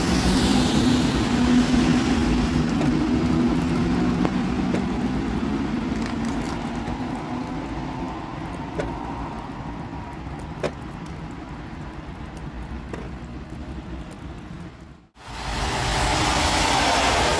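Cologne light-rail tram pulling away from the stop, its motor hum fading as it runs off down the track, with a few light clicks. About fifteen seconds in the sound drops out briefly, then a car passes on the wet road with a rising tyre hiss.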